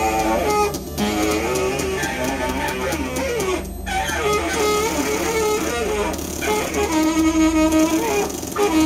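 Saxophone played in loud free improvisation: wavering, bending notes broken by a few short gaps, over a steady low hum.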